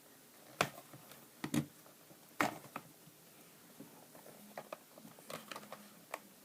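Sharp clicks and ticks of a plastic pry tool against a laptop's plastic screen bezel as it is worked along the edge in search of a gap under the clipped-in frame. There are three louder clicks in the first two and a half seconds, then a run of lighter ticks.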